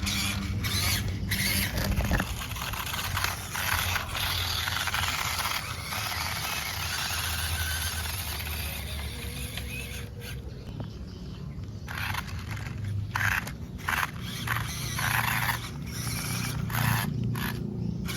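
The small electric motor and gears of a 1/16 WPL C24 Toyota Hilux RC crawler whining in short bursts as the throttle is worked on and off, with scraping from the terrain. There is a longer pause about two thirds of the way through.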